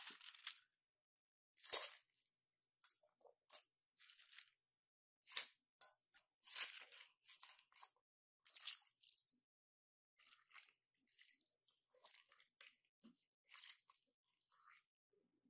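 Soft, irregular crisp rustles and crunches with light wet splashes from napa cabbage leaves and glass noodles being handled and stirred in a steel pot of broth.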